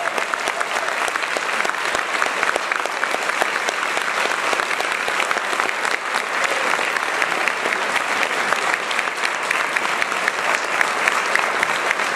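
An audience applauding: many people clapping in a dense, steady patter that goes on without a break.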